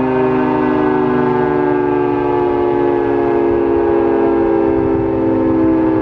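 Federal Sign & Signal 3T22 three-tone outdoor warning siren sounding its Hi-Lo test signal: a loud, steady multi-tone chord whose pitch sags slightly lower over the few seconds.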